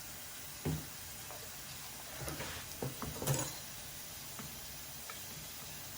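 Kitchen handling sounds from lemon going into a pot of crab: a single soft knock about a second in, then a cluster of short knocks and clicks midway, over a steady faint hiss.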